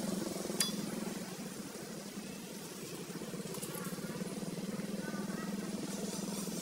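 A steady low motor hum with a fast flutter, and a sharp click about half a second in.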